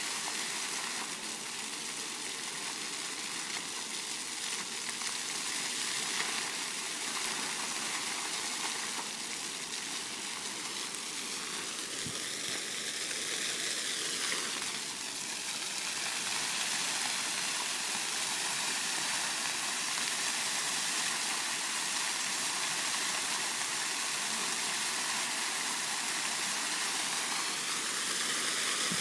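Water jets of a dancing floor fountain spraying up and splashing back onto the paving: a steady rush of falling water.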